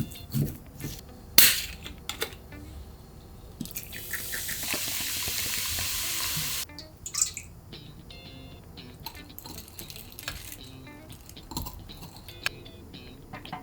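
Kitchen tap running for about three seconds and shut off abruptly, with scattered knocks and clicks before it and light clinks of dishes and utensils after.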